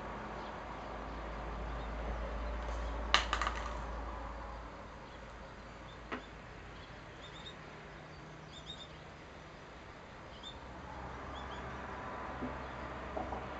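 Quiet outdoor ambience with faint, short, high chirps of small birds, and a brief clatter of sharp clicks about three seconds in, with one more click a few seconds later.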